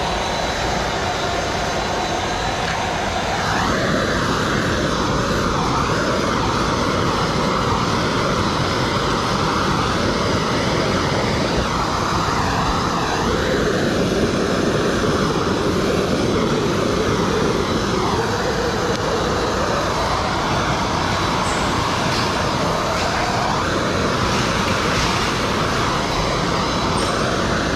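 Handheld gas torch with its blue flame lit, running with a steady rushing roar. Its tone shifts every few seconds as the flame is swept over window tint film to heat-shrink it to the windshield's curve.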